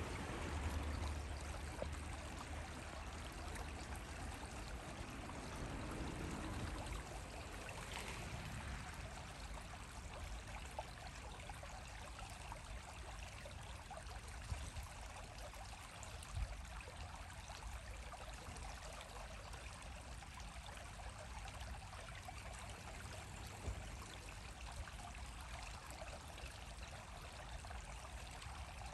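Steady rushing background noise, like running water, with a low rumble in the first couple of seconds and a few faint clicks.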